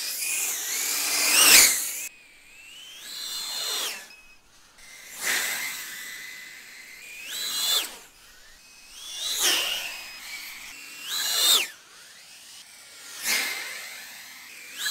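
5-inch FPV quadcopter on HQProp 3.5-inch eight-blade propellers making repeated fast passes: a high motor-and-prop whine that swells and fades about seven times, its pitch sliding up and down as it comes and goes.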